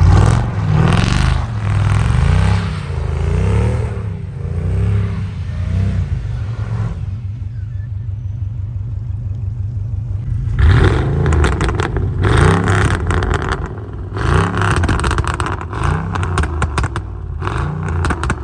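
Mercedes-Benz E55 AMG's supercharged V8 revving up and down again and again as the rear wheels spin and the car slides through wet snow. The revs ease off for a few seconds in the middle, then pick up again with a crackling, scraping spatter of snow.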